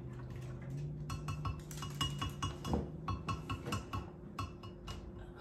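A utensil stirring thick batter in a glass measuring cup, clinking against the glass in quick repeated strokes, a few a second.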